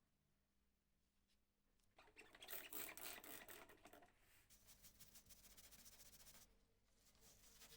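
Rapid scrubbing or rubbing strokes, as of brushing or sanding a part by hand, starting about two seconds in, loudest at first, then softer with a short pause near the end.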